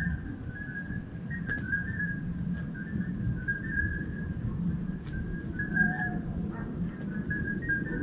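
Night-time countryside animal chorus: a near-continuous high, whistle-like calling in short overlapping notes, with a lower call about six seconds in, over a steady low rumble.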